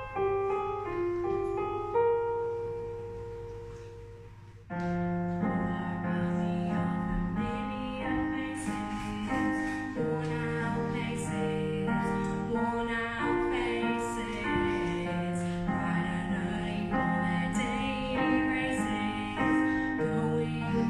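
Digital stage piano played solo: a run of falling notes that fade over the first few seconds, then, from about five seconds in, fuller chords in a slow, steady pattern.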